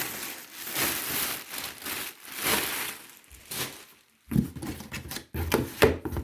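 Rustling and scraping handling noise for about four seconds, then a run of knocks and clatters as the vacuum cleaner's parts and packaging are handled.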